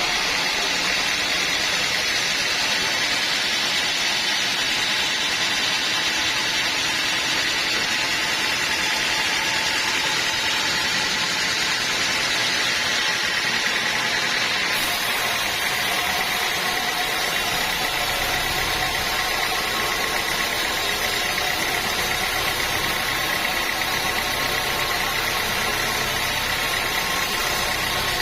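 Sawmill machinery running steadily with a constant whine and hiss. About halfway through, a brighter hiss and a lower hum join in.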